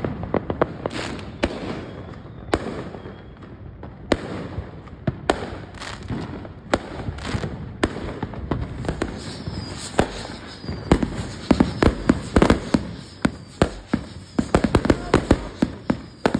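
Consumer fireworks going off around a neighbourhood: scattered bangs and pops that turn into dense, rapid crackling over the second half.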